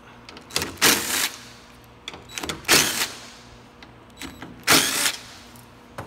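A power tool fitted with a T30 Torx bit backing out the three bolts that hold a car door latch: three short bursts about two seconds apart.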